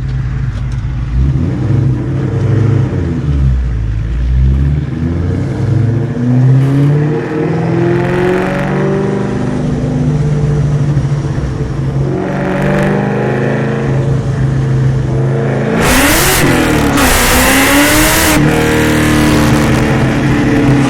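Cammed, Whipple-supercharged 2003–04 SVT Mustang Cobra 4.6 L V8 under way, its pitch climbing and dropping back several times as it accelerates. The loudest pull comes about sixteen seconds in.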